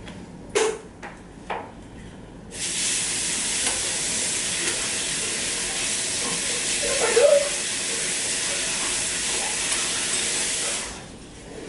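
Water running from a tap in a small bathroom as a steady hiss. It starts abruptly a couple of seconds in and shuts off abruptly about eight seconds later, with a brief vocal sound a little past halfway.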